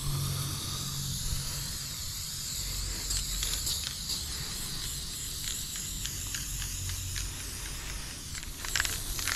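Aerosol spray paint can hissing as paint is sprayed onto a concrete wall. The hiss is steady at first, then comes in many short bursts from about three seconds in, with the sharpest bursts near the end.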